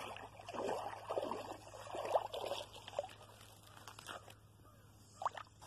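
Shallow lake water sloshing and splashing faintly and unevenly as someone wades and works a cast net in it, over a low steady hum.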